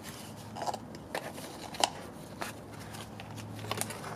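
Scattered light clicks and knocks as a car AC compressor is handled and tipped over a plastic cup to drain its oil. A faint low hum comes in about halfway.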